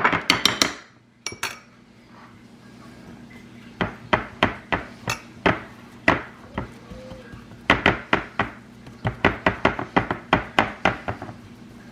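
A kitchen utensil knocking and clinking against a dish, irregularly at first and then in quick runs of sharp taps, over a faint low steady hum.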